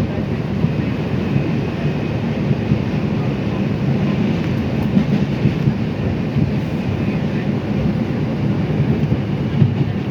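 R142 subway car running at speed in the tunnel, heard from inside: a steady rumble of wheels on rail with a faint high whine over it.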